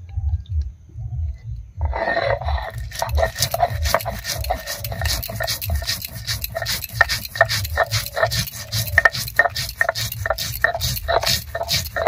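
Stone muller grinding whole black mustard seeds, cumin seeds and green chillies on a flat grinding stone (sil-batta). Starting about two seconds in, there is rapid crackling of seeds cracking under the stone over a scraping rasp.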